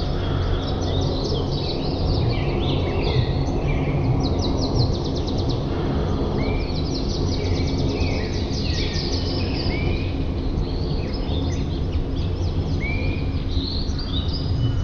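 Several small birds chirping and trilling, with short arched whistled notes repeated every second or two, over a steady low rumbling noise.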